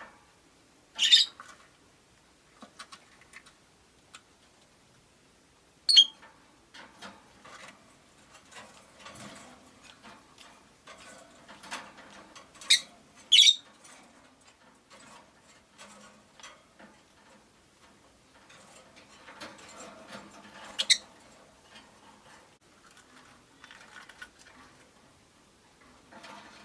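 Rose-faced lovebirds giving short, sharp, shrill calls about six times, with soft clicking and scratching between the calls.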